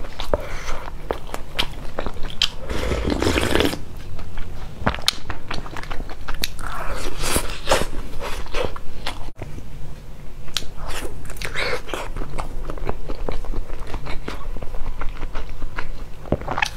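Close-miked eating: a person chewing and biting pan-fried flatbread stuffed with greens and carrot, a steady run of crunches and mouth clicks with a few louder crunchy bites about three, seven and eleven seconds in.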